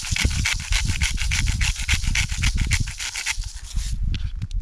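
Hand-twisted salt grinder crushing coarse salt: a rapid, even run of gritty crunching clicks, about six a second, that stops about three seconds in.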